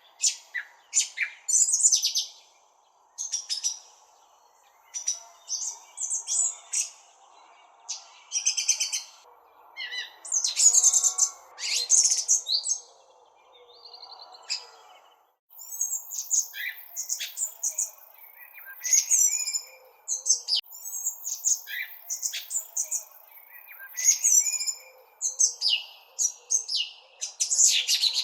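Several birds chirping and twittering, with short, high chirps and quick trills following one another with brief gaps.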